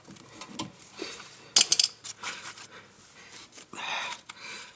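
Metal hand tools clinking and scraping against a brake caliper, with a sharper clatter about a second and a half in, and a heavy breath near the end.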